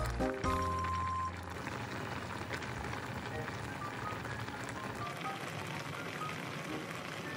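Spicy soy and red-pepper braising liquid simmering and bubbling around radish and potato slices in a pan, a steady crackling hiss. Light background music ends about a second in.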